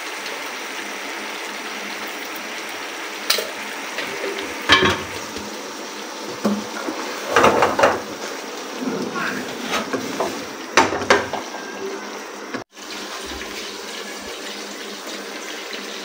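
Chicken curry sauce simmering and sizzling in a wok, with a spatula stirring through it and knocking and scraping against the pan several times.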